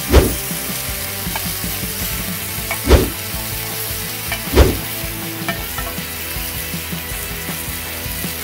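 Beef sirloin sizzling in a pan over an open wood fire, a steady hiss of frying, with three heavy thuds as the meat is worked with tongs and scissors.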